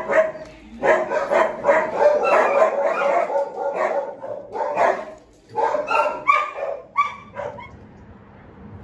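A Belgian Malinois-type dog barking repeatedly from a kennel: a quick run of barks over the first few seconds, then several separate barks, stopping about a second before the end.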